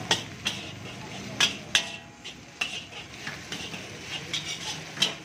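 A long-handled steel spatula scraping and clanking against a large iron wok as fried rice is tossed and stirred. Sharp metallic clanks come at irregular intervals over a steady hiss.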